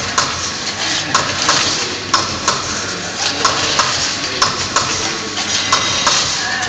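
Steady hiss of a core-cutting machine with sharp metallic clicks and clinks, about one or two a second, as thin steel strips for a transformer core are cut and laid onto the stack.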